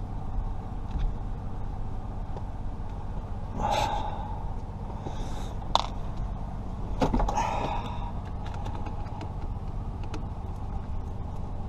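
Hard exhales and grunts of effort while prying at tight plastic steering-column shroud clips, twice, with a sharp plastic click between them and a steady low hum underneath.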